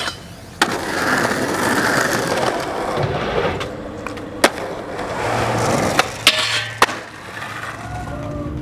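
Skateboard wheels rolling on concrete and asphalt, broken by about five sharp wooden clacks of the board popping and landing. Three of the clacks come close together about two-thirds of the way through.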